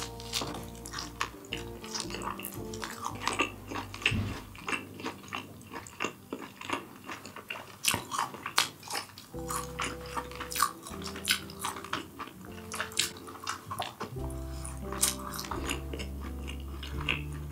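Eating sounds: utensils clicking and scraping against dishes, many short sharp clicks throughout, over background music with a low bass line.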